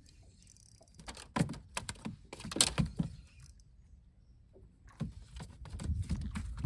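Irregular clicking, rattling and knocks from a spinning rod and reel being worked against a hooked fish, with a low rumble building near the end.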